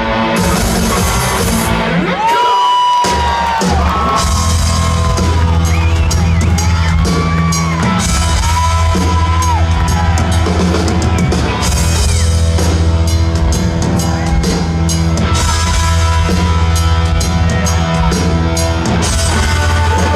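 Live rock band playing an instrumental passage: drums and a steady heavy bass under a lead line of bent, sliding notes.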